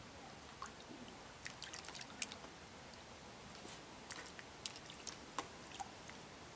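Shetland sheepdog's paws and claws tapping and scraping on a plastic tray as it paws at a frog: scattered light clicks that come in two flurries, about a second and a half in and again about four seconds in.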